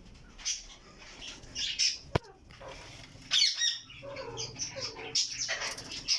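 Budgerigars chirping and chattering in short, scattered bursts, with a quick run of falling chirps about three seconds in. A single sharp click about two seconds in is the loudest sound.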